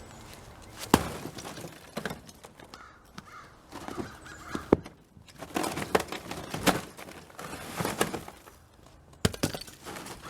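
Ice frozen in a canoe being struck and broken up: irregular sharp cracks and knocks, about eight over ten seconds.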